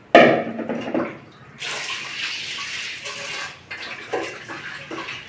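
Water splashing and running in a steel kitchen sink while fish pieces are rinsed in a pot. It starts with a sudden loud splash, then a second or two of steady pouring, then a few light knocks of the metal pot.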